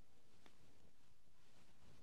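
Quiet room tone with faint handling noise: fingers working thin cord and thread, with one small click about half a second in.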